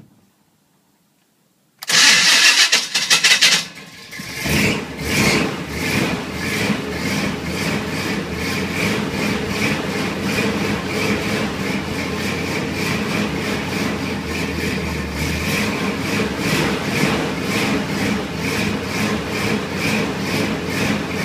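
Near silence, then the 1986 Chevy K5 Blazer's 350 V8 with headers and Flowmaster exhaust is cranked about two seconds in and catches. It settles into running with a regular pulse, kept alive by pumping the accelerator because the Quadrajet carburetor is halfway plugged up.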